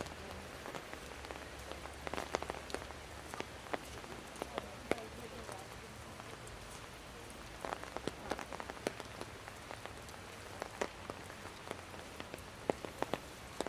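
Rain falling steadily, with irregular sharp taps of drops landing close by.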